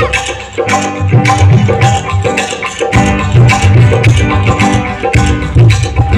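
Live band music played loud over stage speakers: Rajasthani-style folk fusion, with guitar and hand percussion keeping a steady, driving beat.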